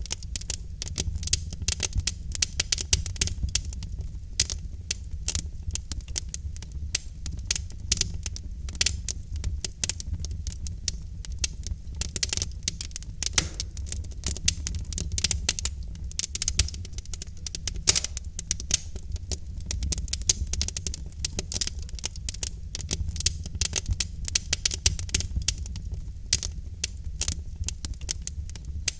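Wood fire of burning logs crackling in a fireplace: many sharp pops and snaps, fast and irregular, over a steady low rumble.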